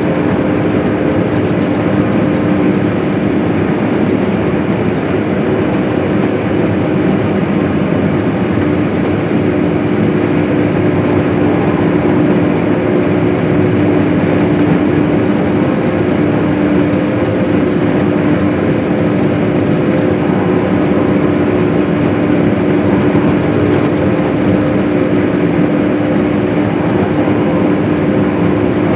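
Case IH swather running steadily while cutting hay: a constant engine and machinery drone with a steady hum.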